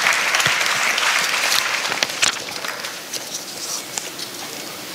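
Audience applauding, the clapping dying away about halfway through to a much quieter room.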